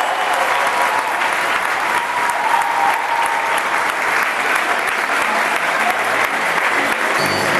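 Crowd of hockey spectators applauding: a steady patter of many hands clapping.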